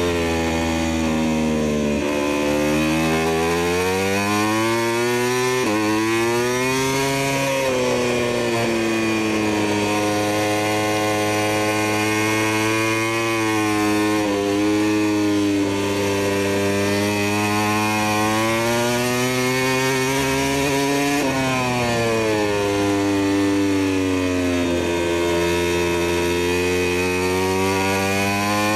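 Big-bike motorcycle engine sound effect revving up through the gears: the pitch climbs, then drops sharply at each shift, several times, between stretches of steady high revs.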